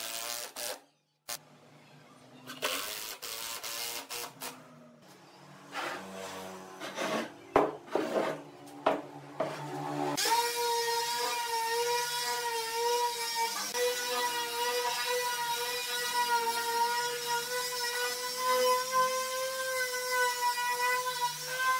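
Makita cordless impact driver running in short bursts, hammering screws into the hardwood table frame. About ten seconds in, an electric palm sander starts and runs steadily with an even, pitched motor hum.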